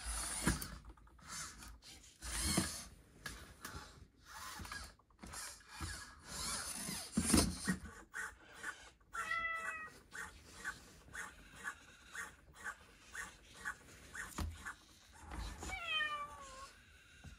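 Robotic pet cat meowing through its speaker: a short meow about nine seconds in and a longer, falling meow near the end. Between them comes a soft pulsing about twice a second, with scattered rustling from fur being petted in the first half.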